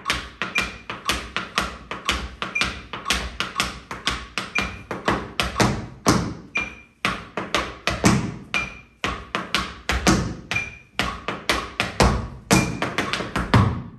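Tap shoes striking a wooden floor in a rapid, rhythmic time step, several taps a second. A short, high metronome beep recurs at even intervals underneath.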